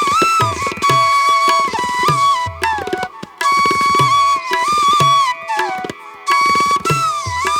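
Background instrumental music in an Indian classical style: a sustained, sliding melody line over repeated hand-drum strokes.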